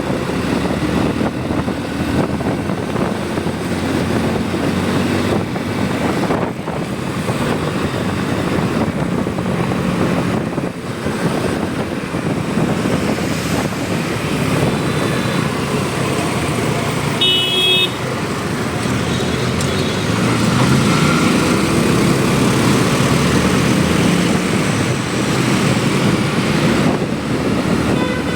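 Motorcycle ride through road traffic: steady engine and road noise, with a short vehicle horn honk a little past halfway.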